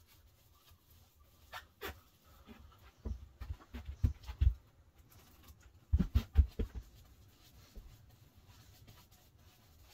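Short, dull, low thumps in two clusters, one about three seconds in and another about six seconds in, with a few faint clicks a little before the first cluster.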